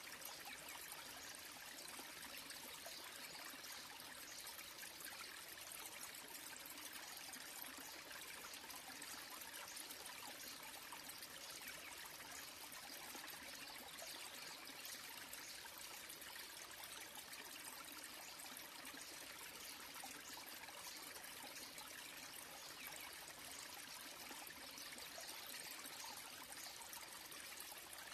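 A small waterfall, thin streams of water trickling and splashing onto rock into a shallow pool, with a steady, even splashing sound.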